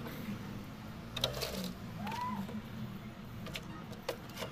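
Handfuls of coco peat substrate dropped and pressed into a clear plastic jar: soft rustling with a few light taps on the plastic, over a steady low background hum.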